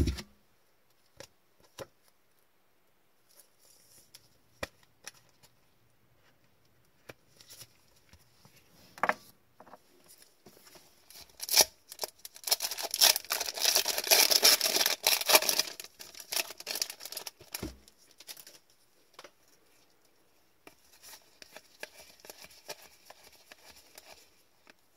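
A hockey card pack wrapper being torn open by gloved hands, with a loud crinkling tear a little before halfway through. Small clicks and taps of handling come before it, and softer rustling of the cards being slid out comes near the end.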